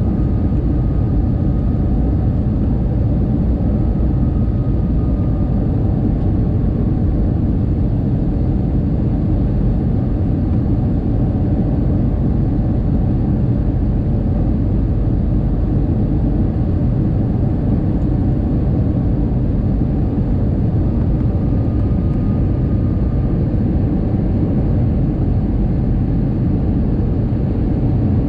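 Airbus A321 cabin noise on final approach, heard from inside the cabin over the wing: a steady, loud rush of engine and airflow noise, deepest in the low end. A faint thin whine comes and goes twice.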